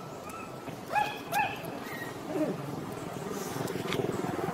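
Macaque calls: short, high squeaky cries, two close together about a second in, with fainter chirps around them. A low buzzing grows louder near the end.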